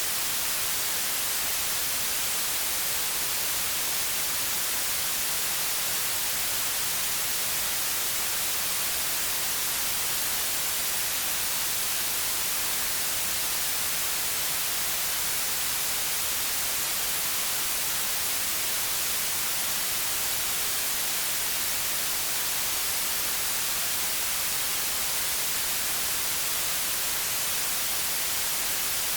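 Steady white noise: an even, unchanging hiss, brightest in the high frequencies.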